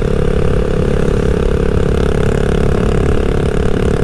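Honda Rebel 300's single-cylinder engine running steadily at a constant cruise of about 40 mph, with an even tone and no change in revs.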